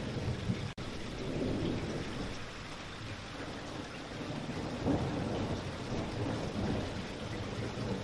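Steady rain, heaviest in the low end, with slow rumbling swells that rise and fade about one and a half and five seconds in. The sound cuts out for an instant just under a second in.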